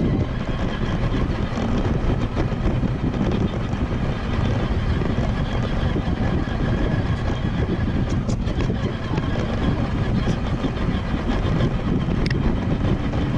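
Small battery-powered ride-on vehicle running and rolling over rough ground, a steady rumble with a few light clicks and rattles.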